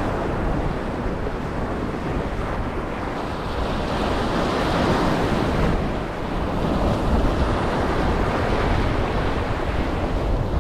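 Ocean surf breaking and washing on a beach, a steady rush that swells about four seconds in, with low rumbling that may be wind on the microphone.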